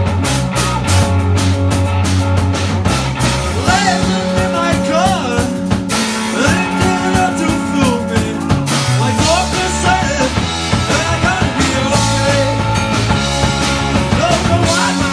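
Live rock band playing loud through club amplification: electric guitar, bass guitar and drums, with lead notes bending up and down over a steady bass line.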